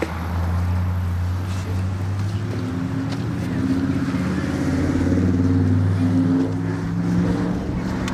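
An engine running steadily at an even speed, with a low hum and a slight waver in pitch.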